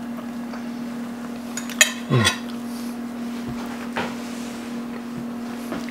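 A metal fork clinking on a ceramic plate and then being set down, a few separate clinks spread over several seconds. There is a short falling vocal murmur from the taster while he chews, over a steady low hum.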